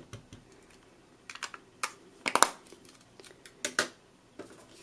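An ink pad being dabbed onto a clear stamp mounted on an acrylic block: a handful of short, light taps, the loudest about halfway through.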